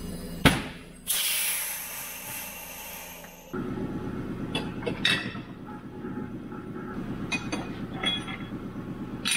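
Pneumatic bead breaker of a hybrid tire changer working on a garden tractor tire: a sharp knock, then a loud hiss of air that fades over about two seconds. After that a steady low machine hum sets in, with metal clinks as the steel wheel rim is set down on the changer's spindle.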